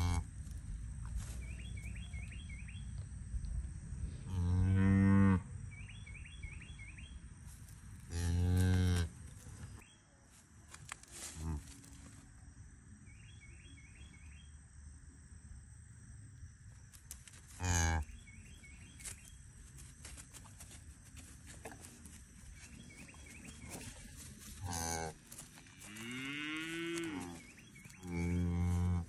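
Mother beef cow lowing to her newborn calf: about six deep, short moos spaced irregularly, one near the end rising and falling in pitch.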